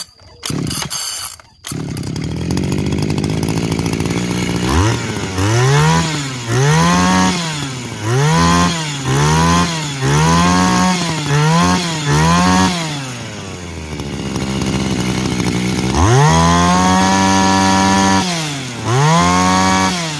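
Small Tanaka two-stroke brush-cutter engine head catching after pulls on its recoil starter, then revved by hand at the carburettor throttle. It runs through a rapid string of rising-and-falling revs, drops to a lower speed for a couple of seconds, holds a long high rev, and blips once more near the end.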